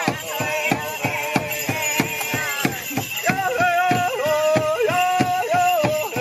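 Native American-style drum song for the prairie chicken dance: a drum struck in a steady beat of about three strokes a second, with a voice chanting over it that holds long notes from about halfway through.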